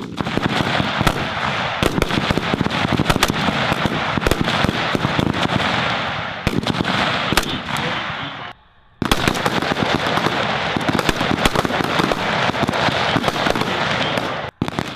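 Many M27 5.56 mm rifles firing together along a range firing line: a continuous crackle of overlapping single shots. The shooting breaks off for about half a second a little past halfway, and again briefly near the end.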